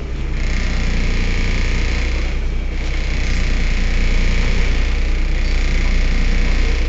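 Heuliez GX 127 city bus diesel engine running steadily, a low drone with a higher whine above it. The whine fades briefly about two and a half seconds in, and the engine grows slightly louder afterwards.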